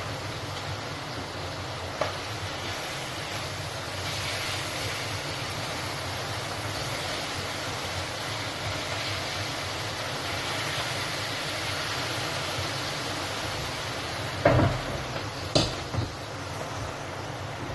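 Food frying in a pan on a gas stove: a steady sizzle and hiss. A utensil knocks sharply against the pan three times near the end, the first knock the loudest, with a lighter click about two seconds in.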